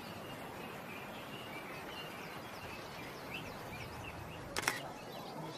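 Outdoor natural ambience: a steady soft hiss with faint, high bird chirps scattered through it, and one short sharp click about four and a half seconds in.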